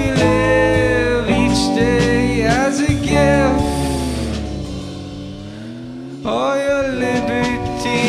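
Live folk-rock band with a singer, guitars and drums. The band thins out in the middle to one long note that slides down and back up, then comes back in full about six seconds in.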